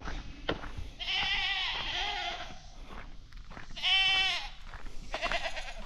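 Goats bleating: a long wavering bleat, then a second, shorter and louder one.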